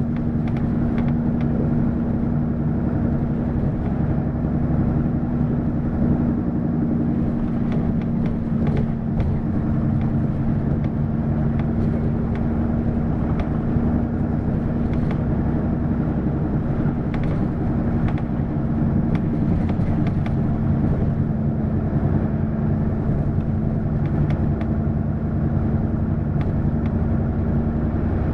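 Diesel engine of a Hino LKG-KV234N3 city bus running steadily, heard from inside the bus, with a constant low hum and a few faint clicks.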